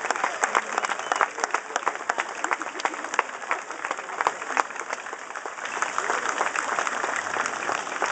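Audience applauding, with crowd voices mixed in; the clapping thins out after about five seconds.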